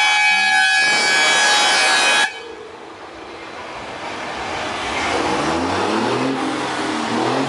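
Volkswagen 24-250 truck's air horn sounding a steady multi-note blast that cuts off suddenly about two seconds in, followed by the truck's diesel engine accelerating, its pitch rising in repeated climbs.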